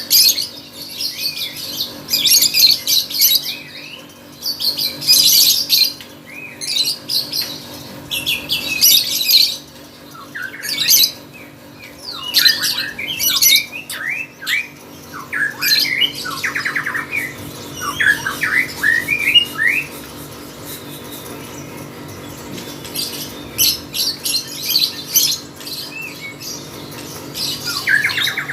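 Lovebird chattering in repeated shrill, rapid bursts of a second or two each, with short pauses between them and a lull of a few seconds past the middle. This is the non-stop 'gacor' chatter prized in lovebird song contests.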